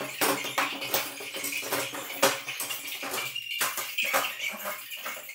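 Light clattering and knocking of hard objects being handled, a quick, irregular run of short clicks.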